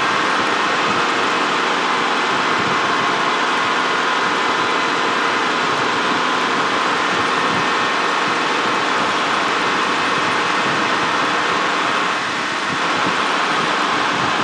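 Steady cabin noise of a helicopter in flight: an unbroken engine and rotor din with a faint steady whine.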